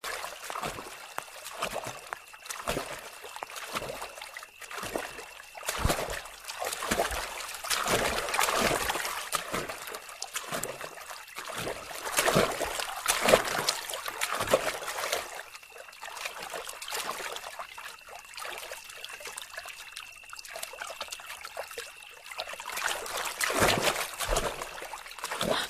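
Water splashing and trickling in a swimming pool, with irregular splashes of varying strength. A faint steady high tone comes and goes twice.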